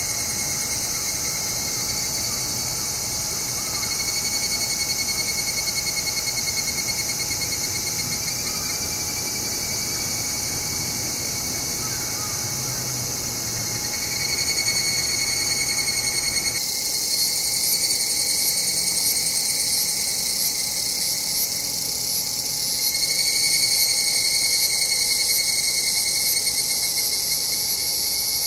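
Higurashi (evening cicadas, Tanna japonensis) calling in a dense, high-pitched trilling chorus. The sound changes abruptly about two-thirds of the way in.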